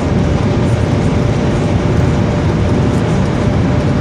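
Inside the cabin of a Hyundai Azera at high speed: a steady engine drone at high revs mixed with heavy wind and road noise.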